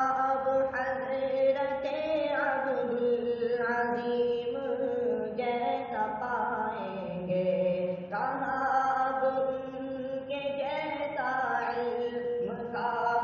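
A male voice singing an Urdu farewell tarana unaccompanied, in long held and gliding notes.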